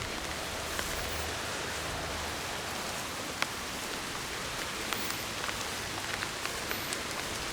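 Steady rain falling, an even hiss with scattered sharp drops ticking close by; one drop lands loudest a little over three seconds in.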